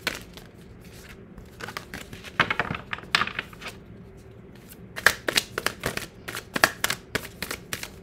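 A tarot deck being shuffled by hand: runs of quick card flicks and clicks, in one spell about two seconds in and another from about five seconds in.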